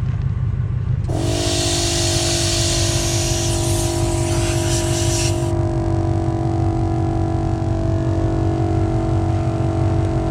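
AllTop 150 PSI onboard air compressor switching on about a second in and running with a steady hum while airing up a tire, over a low steady rumble. A loud hiss of air starts with it and stops about halfway through.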